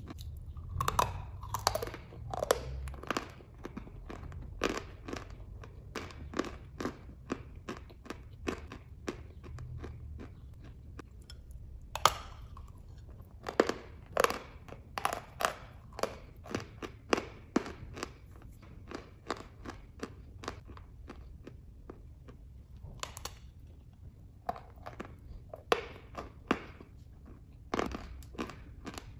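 Dry chalk being bitten and chewed close to the mouth: a run of crisp crunches at about two a second, with a few louder bites spread through.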